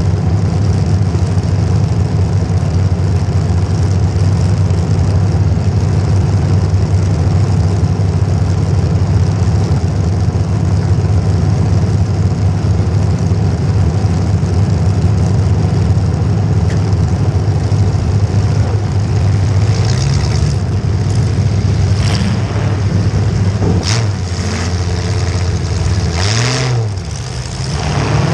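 Demolition derby car's engine idling loudly and steadily, heard close from a camera mounted on its hood. Near the end there are a few sharp knocks, and the engine revs briefly, rising and falling in pitch as the car starts to move.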